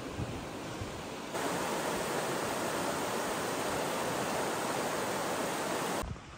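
Steady rushing water, which jumps louder about a second in and cuts off sharply near the end.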